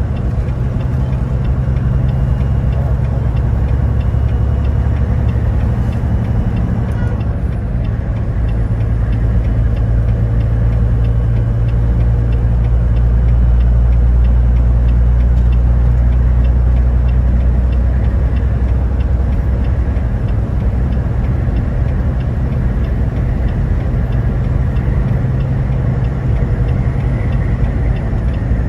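A car driving, its engine and tyres making a steady low rumble that swells slightly about halfway through.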